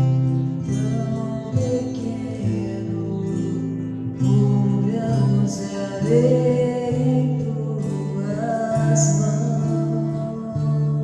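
Music: acoustic guitar with a singing voice.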